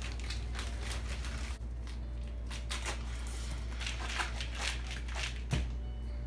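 Crushed Oreo cookie crumbs and cream cheese being stirred in a bowl, with irregular crunching and scraping strokes over a steady low hum.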